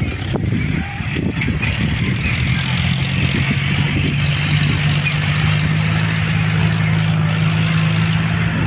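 Mahindra 475 DI XP Plus tractor's four-cylinder diesel engine working under load, pulling a loaded sand trailer through soft sand where it has been getting stuck. The engine note rises slightly about three seconds in and then holds steady.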